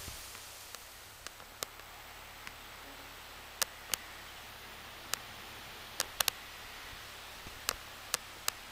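Wind rumbling on the microphone dies away within the first second, leaving a steady hiss broken by about a dozen sharp, irregular clicks.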